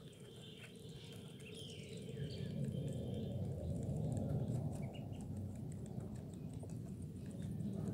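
Ducklings peeping softly, with light scattered taps. A low rushing noise swells about two seconds in and becomes the loudest sound.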